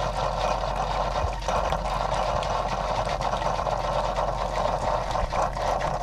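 Keurig K-Express coffee maker's pump running steadily, dispensing hot water into a plastic measuring cup during its first cleansing brew.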